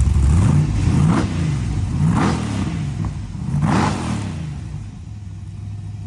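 A high-horsepower car's engine revved hard several times, its pitch climbing and dropping about four times before easing off.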